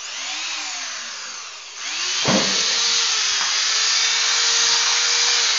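Corded electric drill running, boring a centre hole through a PVC pipe end cap. It gets louder about two seconds in, with a knock, and its motor pitch starts to drop near the end as it slows.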